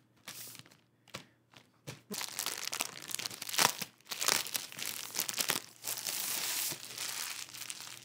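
Clear plastic wrap crinkling and tearing as it is peeled off a new book by hand: a few scattered crackles, then, about two seconds in, a steady run of crinkling and ripping that stops just before the end.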